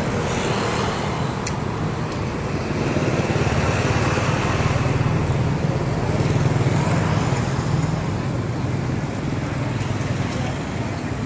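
Road traffic on a busy highway: motorbike and car engines and tyre noise as vehicles pass, growing louder for a few seconds in the middle as a vehicle goes by.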